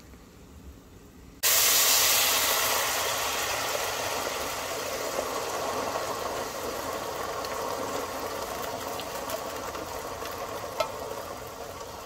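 A pot of water at a rolling boil hissing steadily as elbow macaroni is tipped in. The hiss starts suddenly about a second and a half in and slowly eases off, with a small tick near the end.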